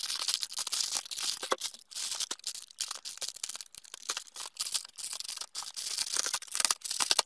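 Plastic mailing bag being cut and pulled open with a folding knife: irregular crinkling and rustling of the plastic, with crackles of the packing tape tearing.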